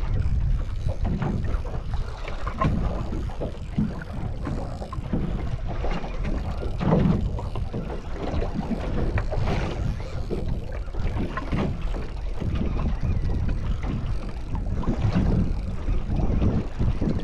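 Wind buffeting the microphone aboard a small boat at sea, with water noise against the hull; the noise gusts unevenly, heaviest in the low end, with no steady engine note.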